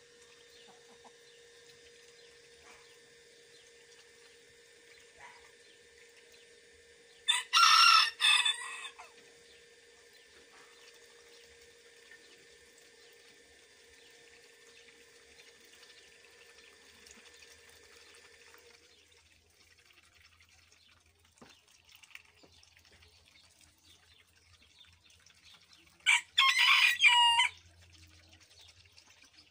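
Bantam roosters crowing cock-a-doodle-doo twice: one loud crow of about a second and a half about seven seconds in, and another near the end.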